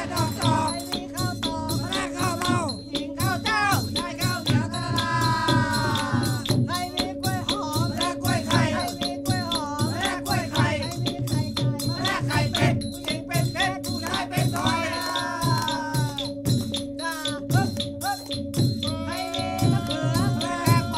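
Background music: a rapid percussion pattern over a steady drone, with a melody that slides up and down in pitch.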